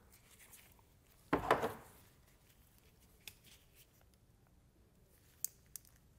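Faint handling sounds of gloved hands and a crimping tool working a wire into a heat-shrink butt connector. There is a brief louder scrape about a second and a half in, then a few small sharp clicks, two of them close together near the end.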